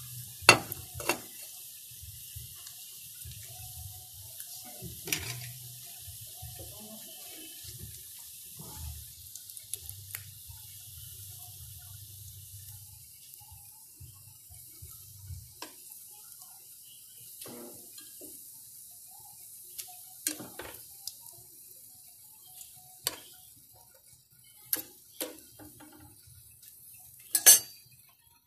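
Banana cheese balls frying in a pan of oil with a faint sizzle. Metal tongs clink sharply against the pan and a ceramic plate as the balls are lifted out, with the loudest clinks near the start and near the end.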